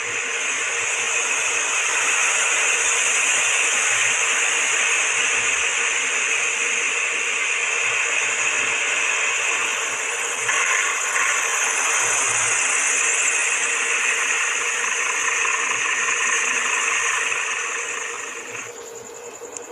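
Jet aircraft engines running with a loud, steady rushing noise and a steady underlying hum; the noise swells in the first couple of seconds and fades away near the end.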